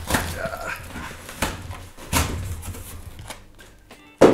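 Cardboard shipping box torn open by hand from the underside, with tearing and rustling strokes. A cat meows briefly about half a second in, and a loud thump comes near the end.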